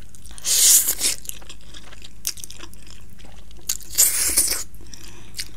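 Close-miked slurping of black bean jjajangmyeon noodles, two long slurps about half a second in and about four seconds in, with chewing and small wet mouth clicks between.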